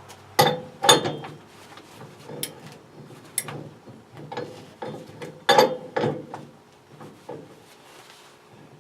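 Metal tool clanking and clicking on a stuck boiler pipe fitting as it is forced to loosen it: irregular knocks, several sharper than the rest.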